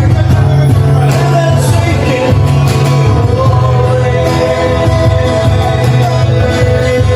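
Background music: a song with a sung melody over a steady bass line.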